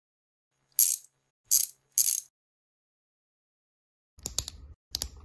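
Plastic-and-metal tablet clip of a Hugerock X7 controller mount being fitted: three short rasping slides in quick succession, then a run of quick ratchet-like clicks near the end as the knob on the clip is turned.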